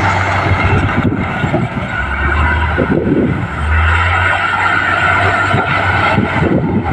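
Komatsu D58P bulldozer's diesel engine running under load, its low note dipping lower twice as it pulls, with a steady clanking and rattling over it.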